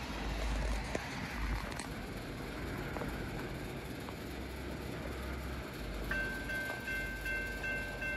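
Railroad grade-crossing warning bell starts about six seconds in, ringing in rapid, evenly repeated dings as the crossing activates for an approaching train. It rings over a steady low rumble.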